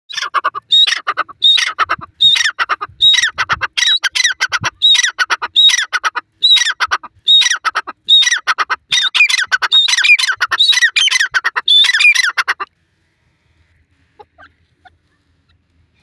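Grey francolin calling: a loud run of about a dozen high-pitched, ringing call phrases repeated a little under one a second, which breaks off suddenly about thirteen seconds in.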